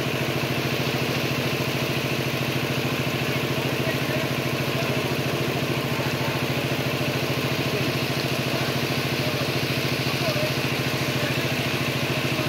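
A small engine running steadily at an even idle, with a fast, regular beat.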